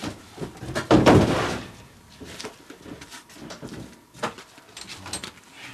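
Cargo being handled in a helicopter's metal cargo hold: one loud, heavy bang about a second in that rings briefly, then a few lighter knocks.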